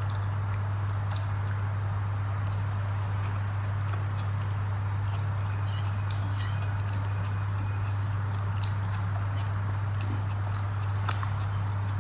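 A steady low hum, with soft wet clicks and smacks of fingers mixing rice on a plate and of chewing scattered over it.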